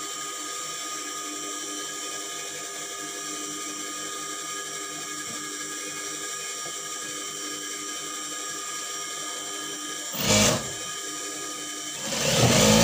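Industrial sewing machine's motor humming steadily with a faint regular ticking. It breaks into a short burst of stitching about ten seconds in and a longer burst near the end, test-sewing the seam after the bobbin-case tension screw has been tightened.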